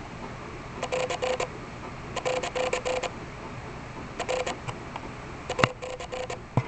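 Downy woodpecker pecking at a bird feeder in quick bursts of taps, about ten a second, each tap with a short ringing note. There are four bursts, and one louder single knock comes near the end.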